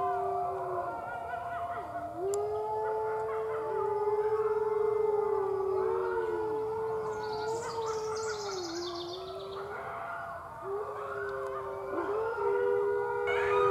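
Red wolves howling: several long, overlapping howls at slightly different pitches, each held steady for a few seconds and dipping in pitch between them.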